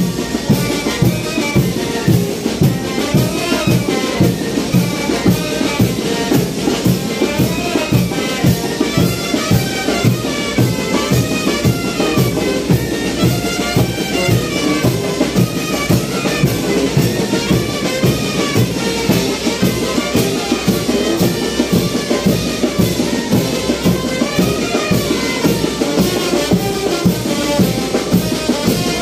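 Brass band playing chinelo dance music: a brass melody over a steady, driving drum beat.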